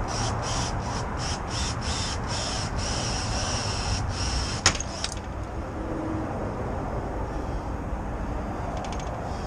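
Steady motor-vehicle rumble and road noise, with a sharp click a little under five seconds in.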